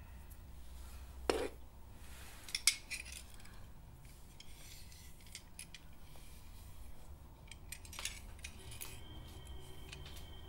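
A few faint clinks of broken china fragments being handled and picked up, the clearest about a second in and another pair near three seconds in, with quiet room tone between.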